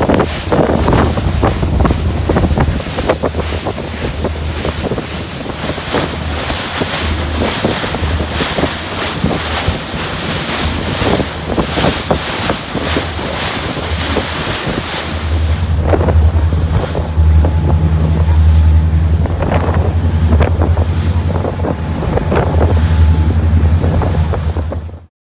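A motorboat's engine running with a steady low drone, under wind buffeting the microphone and water rushing past the hull. The engine drone grows louder a little past halfway, and the sound cuts off abruptly at the end.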